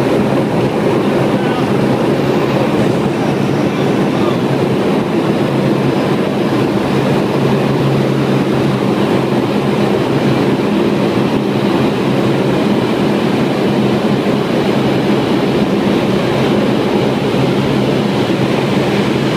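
C-130 Hercules' Allison T56 turboprop engines and propellers at takeoff power during the takeoff roll, heard from inside the cabin: a loud, steady drone with a low propeller hum under a dense rush.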